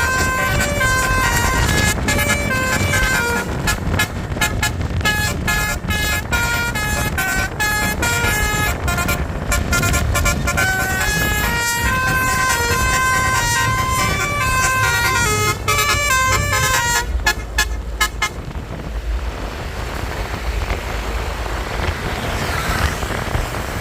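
Basuri telolet musical bus horn playing a long tune of quick, stepping horn notes. For the last five seconds or so the tune gives way to a steady rushing noise.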